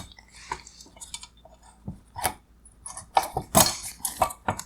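Clicks, taps and rattles of small plastic parts being handled as a wire harness connector is worked loose from a car headlight's LED module, with a cluster of sharper clicks about three seconds in.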